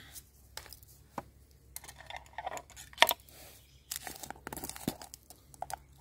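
A plastic bag being handled and torn open, with crinkling and scattered sharp clicks; the loudest click comes about three seconds in and a denser rustle about a second later. It is most likely the bag of sugar being opened for the lemonade.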